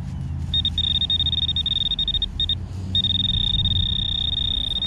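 Garrett Pro-Pointer AT pinpointer sounding a high beep that pulses rapidly, then settles into a continuous tone about three seconds in, the sign that its tip is right on the target in the top soil. A low rumble runs underneath.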